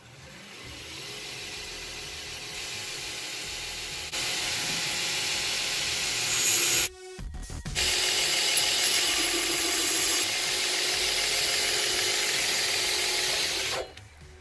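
Belt grinder running: a steady motor hum under the hiss of steel being ground against a 60-grit belt over a 3-inch contouring wheel, cutting texture grooves into the piece. It builds up at first, gets louder a few seconds in, breaks off briefly about halfway, and stops near the end.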